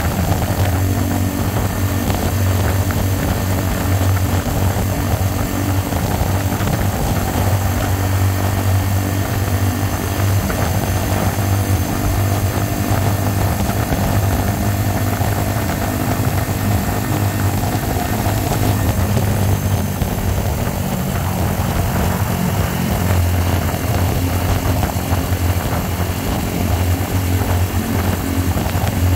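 Single-cylinder 125cc motorcycle engine running steadily at road speed through a slash-cut exhaust repacked with glass-fibre packing, with wind noise over the microphone.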